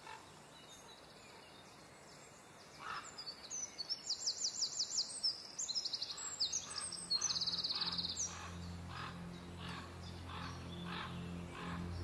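A songbird singing bursts of rapid high trills from about three seconds in. Near the middle, music fades in under it: a low steady drone with a soft pulse about twice a second.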